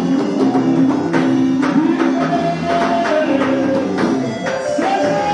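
Music with a steady beat: held notes and a melody line over evenly spaced percussion.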